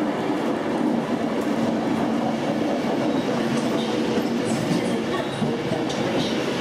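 Virgin Trains Class 390 Pendolino electric train running in alongside the platform: a steady rolling noise of its wheels on the rails.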